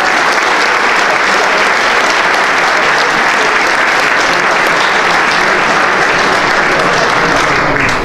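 Audience applauding with steady, dense clapping that cuts off suddenly at the very end.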